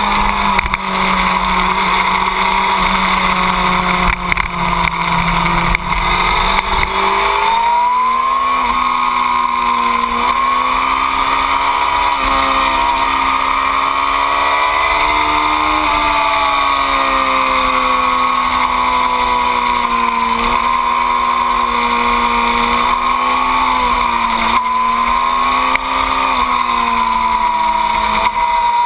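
2008 Yamaha R6's inline-four engine running hard on track, its pitch swinging down and back up several times as the throttle closes and opens through the corners.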